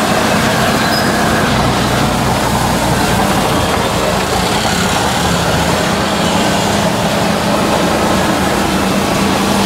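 Auto-rickshaw (tuk-tuk) engine running steadily as it drives, heard from inside the open-sided cab, under a constant hiss of wind and wet-road noise.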